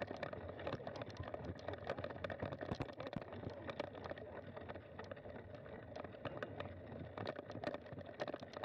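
Bicycle rolling slowly over a bumpy dirt trail while towed by dogs, with a constant jumble of small rattles and knocks from the bike.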